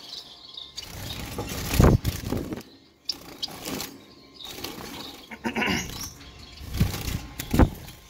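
Rustling and bumping from handling a wire cage and clay nest pot, with two dull thumps, about two seconds in and near the end, while small finches in the aviary chirp now and then.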